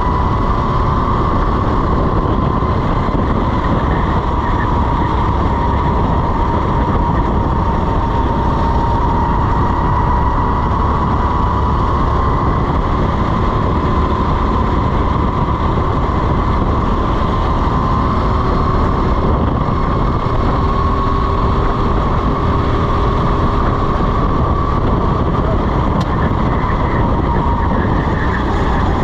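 Racing go-kart engine running hard, heard from on board the kart: a steady high engine whine that wavers slightly in pitch as the throttle changes, over a dense low rumble.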